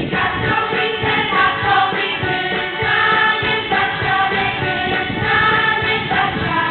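A young choir, mostly girls' voices, singing a song together with held, sustained notes.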